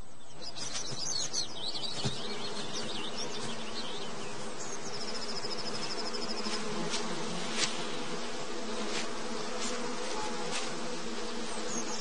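Steady massed buzzing of a swarm of bees or wasps around their broken-open nest comb. A small bird's short high trill comes twice over it, about a third of the way in and near the end.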